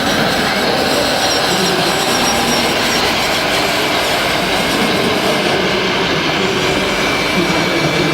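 Model-scale hydraulic pumps and electric drive motors of RC construction machines whining and whirring steadily, with a thin high whine in the second half.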